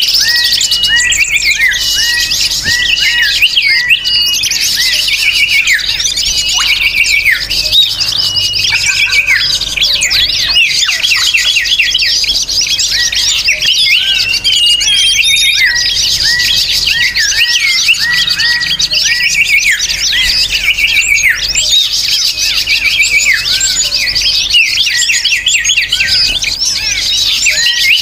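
A dense chorus of many small birds chirping and calling over one another, with rapid repeated chirps and short whistled glides that keep up without a pause.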